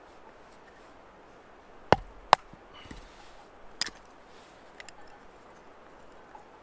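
A knife blade chopping into a stick of resinous fatwood: three sharp strikes, two in quick succession about two seconds in and a third near four seconds, with a couple of faint clicks after.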